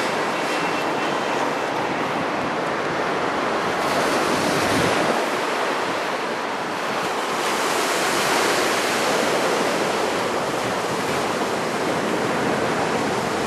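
Steady roar of heavy surf from big typhoon swell, mixed with strong wind on the microphone, swelling a little about four and eight seconds in.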